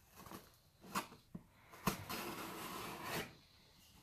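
Pocket knife blade cutting the packing tape on a cardboard box: a few sharp taps and scrapes, then a longer rasping cut that lasts about a second.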